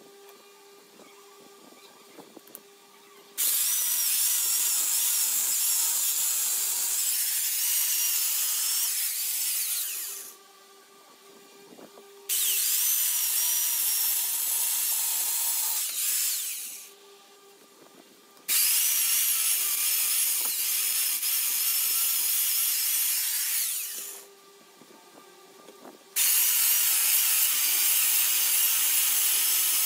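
Small electric chainsaw cutting into a gnarled chunk of wood in four runs of several seconds each. The first starts about three seconds in. Each cut starts abruptly and tails off as the motor winds down, with short quiet pauses between.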